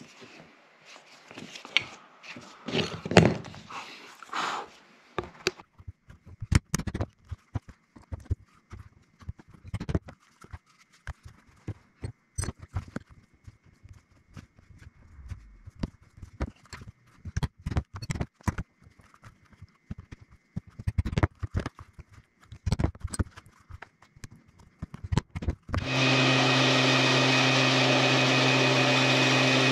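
Leather being handled on a workbench, with many irregular sharp taps and knocks. About 26 seconds in, a belt sander starts with a steady running hum, much louder than the taps, as the edges of a leather sheath are held to the belt to clean them up.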